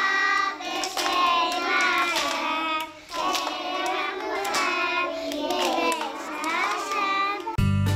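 A group of young girls singing a song together while clapping their hands in time.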